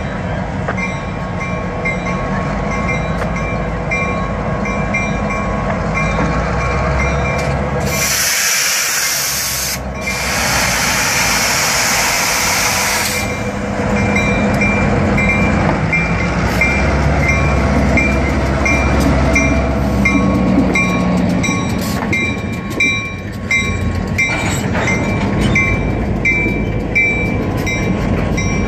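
Union Pacific diesel freight train passing over a grade crossing: the locomotives go by, then tank cars and covered hoppers, their wheels clacking over the crossing, while the crossing bell rings in a steady rhythm. A loud hiss lasts about five seconds a third of the way in.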